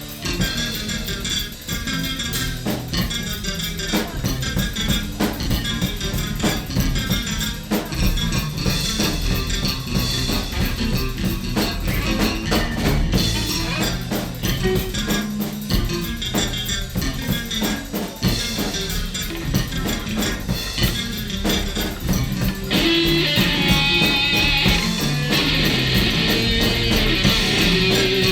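Free-jazz band playing with electric guitar, bass and drum kit in a dense, noisy improvisation. About 23 seconds in, the texture thickens and gets louder.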